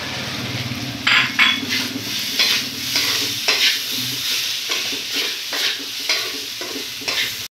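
Fried rice sizzling in a wok as a spatula stirs and scrapes it in quick, uneven strokes, several a second.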